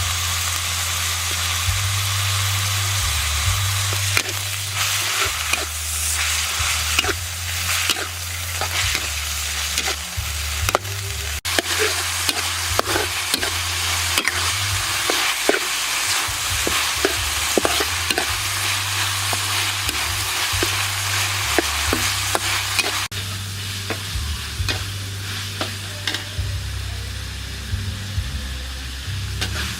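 Eggplant and pork sizzling in a hot pan as they are stir-fried, with a spatula clicking and scraping against the pan over and over. The sizzle is softer and the clicks fewer in the last several seconds.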